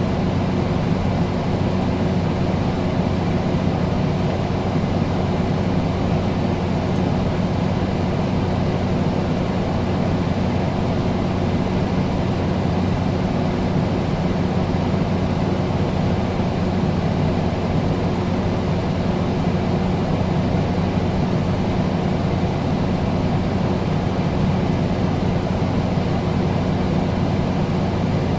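Air conditioner running steadily: a constant rush of air from its fan over a low, even hum.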